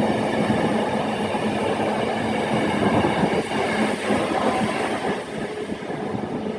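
A train running past on the line, its rumble with a steady hum, slowly fading toward the end.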